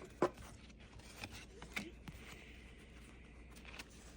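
Quiet handling of a paper sticker sheet: a few soft taps and clicks, the loudest about a quarter of a second in, with faint paper rustling.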